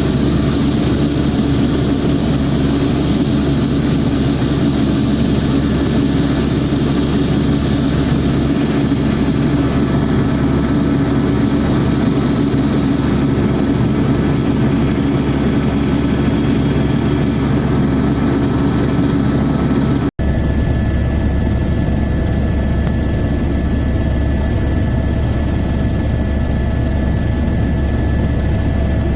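Steady, loud helicopter engine and rotor noise heard from inside the cabin during flight: a deep rumble with several constant whining tones. About twenty seconds in, the sound drops out for an instant and returns with a somewhat different mix of tones.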